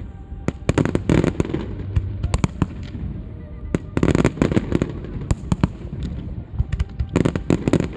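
Fireworks display: rapid volleys of sharp bangs and crackling from bursting shells, coming in three dense clusters, about half a second in, near the middle and near the end.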